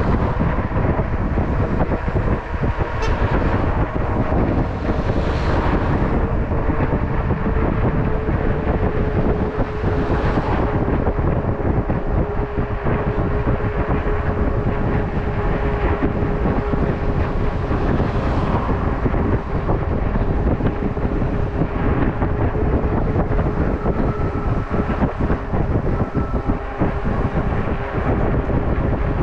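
Wind buffeting the microphone of a bicycle-mounted camera while riding at speed on an asphalt road. Under it runs a steady whine that slowly drops in pitch.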